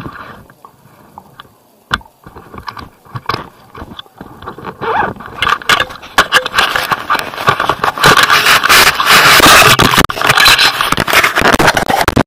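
Handling noise on a phone's microphone: scraping and rustling as the phone rubs against skin and clothing, with scattered clicks at first, then loud and continuous from about five seconds in.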